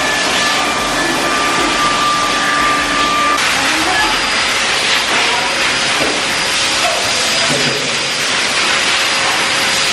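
Dog grooming blower running: a loud, steady rush of air with a thin whine that cuts out about a third of the way in, after which the blowing goes on.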